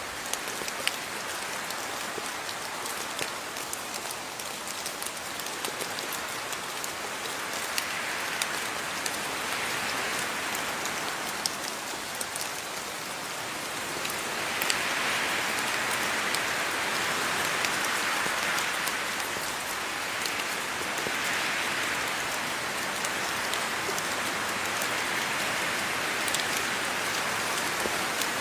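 Steady rain falling, with many fine drop ticks and patters over an even hiss; it swells slightly about halfway through.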